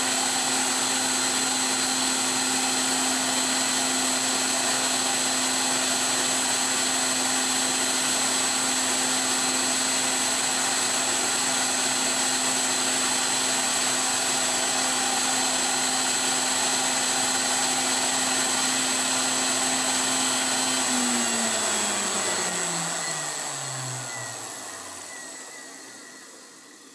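Tool post grinder running steadily with its wheel on the blued taper of an R8 tool during a dry trial grind. About 21 seconds in it is switched off, and its whine falls in pitch and fades as it spins down.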